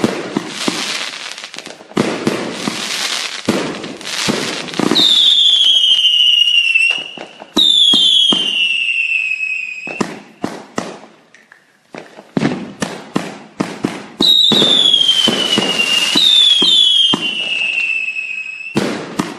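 Fireworks going off: rapid bangs and crackling pops, with four long whistles that each slide down in pitch over about two seconds, two around the middle and two near the end.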